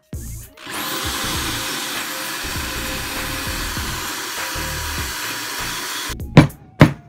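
Electric drill spinning a wire brush inside a welded steel turbo manifold flange, scrubbing out weld spatter. It spins up with a rising whine a little under a second in, runs steadily, and cuts off about six seconds in, followed by a few sharp knocks.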